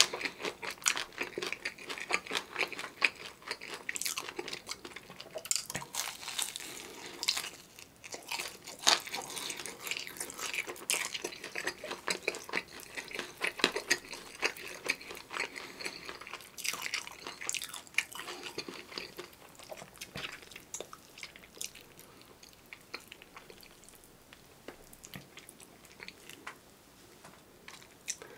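Close-miked biting and chewing of a crispy seasoned fried chicken drumstick, the crust crunching in quick crackles that are dense at first and thin out over the last several seconds.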